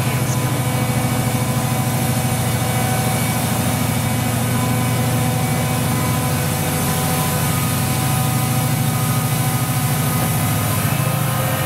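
Class 68 diesel-electric locomotive's V16 diesel engine under heavy power, thrashing as it pulls a passenger train away from a standstill. The engine note is a loud, steady, pulsing throb.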